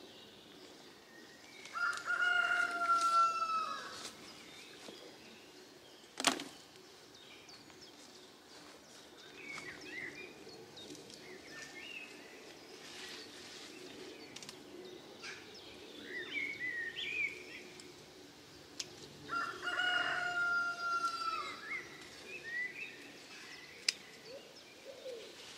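A rooster crowing twice, each a long held call dropping at the end, about two seconds in and again near the end, with small birds chirping in between. A single sharp click about six seconds in.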